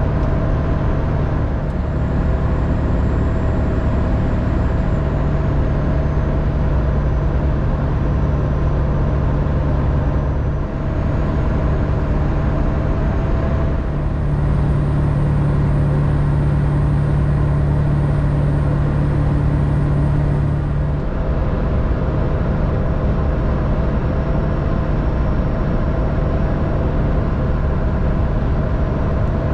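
Steady cabin drone of a 2000 Ford F350's 7.3-litre turbo-diesel V8 and its tyres at highway cruising speed, heard from inside the cab. The engine's low hum grows stronger for several seconds past the middle, then settles back.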